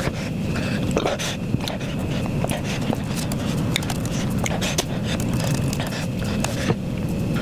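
A person panting hard through the mouth after eating ghost pepper ramen, the burn of the spice making them huff steadily, with small mouth clicks mixed in.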